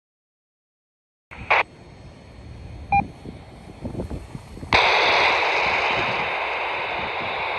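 Amateur radio speaker: after a second of dead silence, a short burst of noise, then a brief beep, then about halfway through a sudden steady hiss of static as a transmission comes in on the net frequency.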